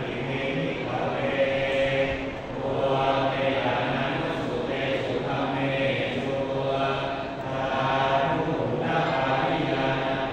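Thai Buddhist monks chanting Pali verses in a low, near-monotone recitation, pausing briefly twice, as part of a ceremony to consecrate amulets.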